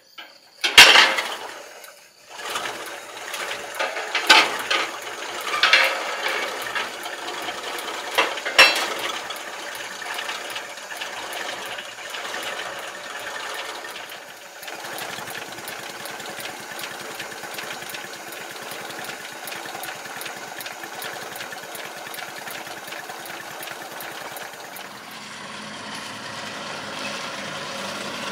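ZIL-164 truck's six-cylinder petrol engine catching after a hand-crank start, with a few loud bursts of throttle in the first nine seconds, then running with a rapid, even beat. About halfway through its note gets deeper.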